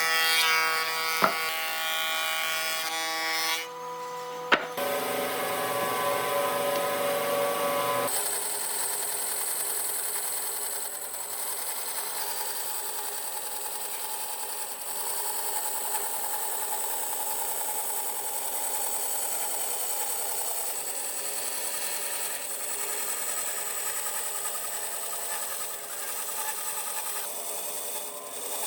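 Electric power tools working wood: a whining motor for the first several seconds, with two sharp clicks, then a steady rasping grind on the wood for the rest.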